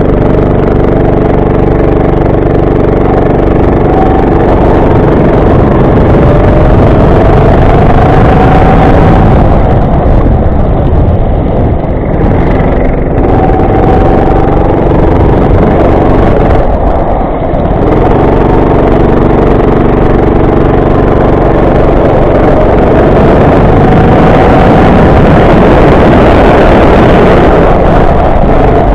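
Go-kart engine running hard under load, its pitch rising and falling as it accelerates and slows through the corners, with a short drop in revs about two-thirds of the way through.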